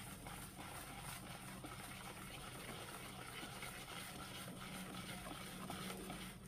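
Wire whisk stirring flour into wet pancake batter in a plastic bowl: a faint, steady soft scraping and swishing.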